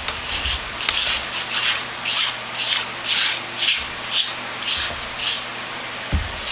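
Scrubbing brush scrubbing grease and grime off a degreaser-soaked bench vise part, in repeated hissing strokes about two a second.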